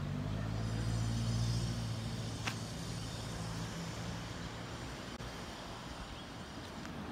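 A motor vehicle's engine running nearby, a low steady hum that is loudest in the first couple of seconds and then fades away. A single sharp click about two and a half seconds in.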